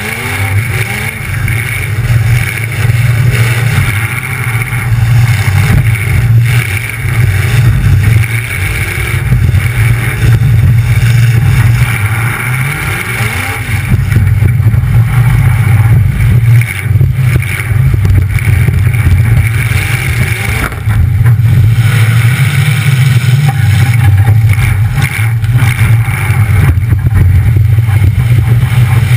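Demolition derby car's engine running loud through two open exhaust pipes standing up through the hood, its note rising and falling with the throttle as the car manoeuvres, with brief dips in level a few times.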